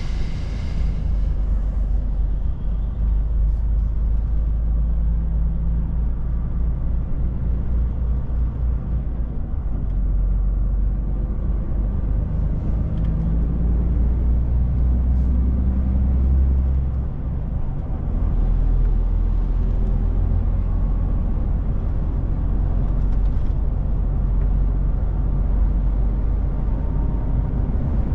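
Inside the cab of a moving DAF truck: steady low drone of the diesel engine and road noise. The drone dips briefly about seventeen seconds in, then settles a little lower in pitch.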